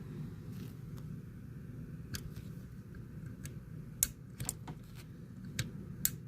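Scattered small, sharp clicks and taps of metal airgun trigger parts being handled and test-fitted, about eight in all, the loudest about four seconds in.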